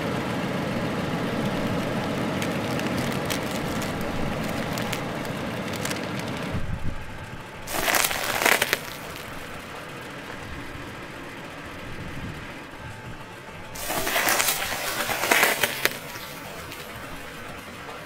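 Music for the first six seconds or so. Then a car tyre rolls over wrapped food items on asphalt, crushing them with crackling crunches of foil and plastic packaging: once about eight seconds in and again, longer, from about fourteen to sixteen seconds.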